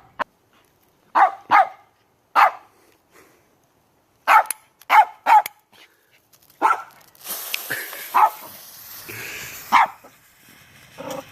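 A dog barking, about ten short barks at uneven gaps. From about seven seconds in, a steady hiss runs under the barks for a couple of seconds.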